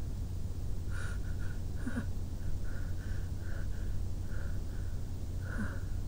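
A sick person breathing and sniffling with a stuffed-up nose, in short repeated breaths, close against a pillow. There are a few soft clicks and a steady low hum underneath.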